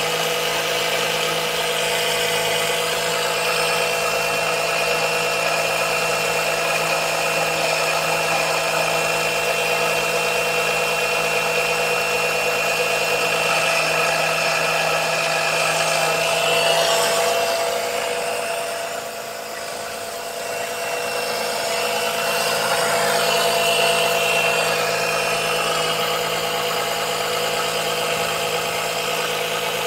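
Small electric oil-extraction suction pump running with a steady hum and whine, labouring to draw thick 10W-40 engine oil. About two-thirds of the way through its sound sags quieter for a couple of seconds, then picks back up. The pump is not pulling enough vacuum for the oil's viscosity.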